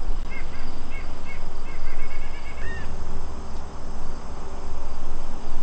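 A bird calling a run of short chirps that quicken into a rapid series about two and a half seconds in. Under it, insects keep up a steady high drone and a low rumble runs throughout.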